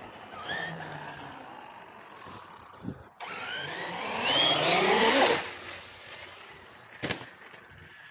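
Traxxas Sledge RC monster truck's brushless electric motor whining up and down in pitch, with its tyres rolling on concrete. From about three seconds in it goes to full throttle for around two seconds, the whine rising and loudest, then eases off; a single sharp knock comes near the end.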